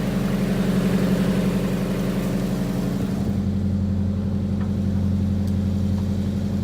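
Nissan 240SX S13's engine idling steadily, just after its first start in a long while on a borrowed battery. About three seconds in the note deepens into a lower hum.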